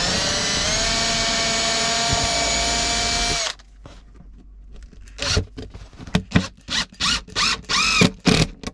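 Power drill running at a steady high whine, its pitch rising slightly as it spins up, then cutting off suddenly about three and a half seconds in. A string of short separate sounds follows.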